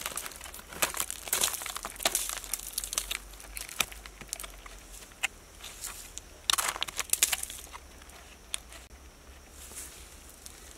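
Rotten, crumbly wood crackling and breaking apart as a hand pulls pieces off a decayed log, in irregular bursts. It is busiest in the first couple of seconds and again at about six and a half seconds, then thins to a few faint crackles near the end.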